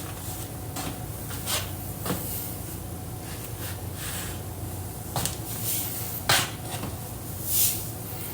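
Kitchen handling clatter: about five scattered knocks and clicks, with two short swishing hisses in between.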